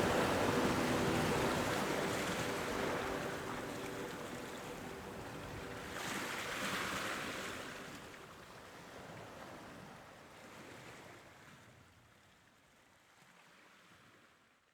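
A rushing, surf-like noise that swells and eases in slow waves, with a few held musical tones under it at first, fading out steadily to silence.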